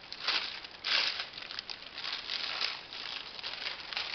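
Plastic parcel wrapping crinkling and rustling as it is handled and pulled open by hand, in a run of irregular bursts, the loudest about a second in.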